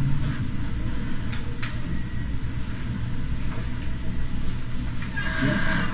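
Steady low rumble of room noise with a few scattered faint clicks and a short rustle near the end.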